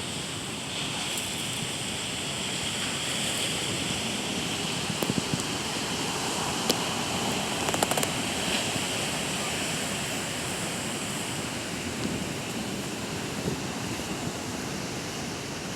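Atlantic Ocean waves breaking and washing on the shore, a steady roar of surf. A few sharp clicks stand out around the middle.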